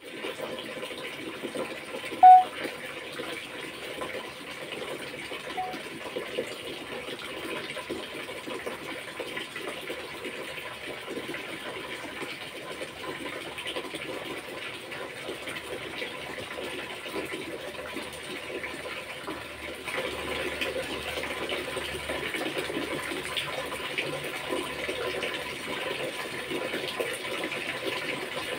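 Steady rushing background noise, with one short, loud pitched note about two seconds in and a faint one a few seconds later.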